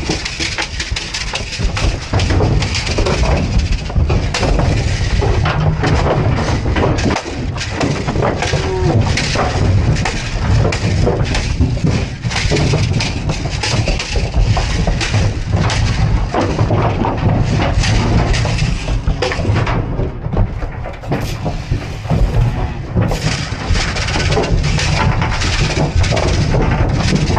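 Continuous clatter and knocking inside an aluminium stock trailer as packed cattle shift about and bump the floor and walls, with a rattle paddle rattling over them. A steady low rumble runs underneath.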